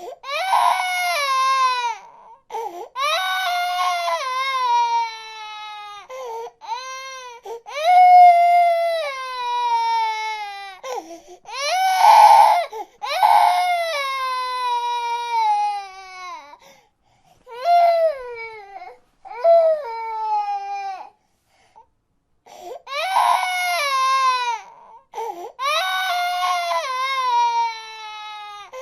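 A baby crying in a run of loud wails, each one or two seconds long and falling in pitch, with short catches of breath between them. There are brief pauses just past halfway and again about three-quarters through.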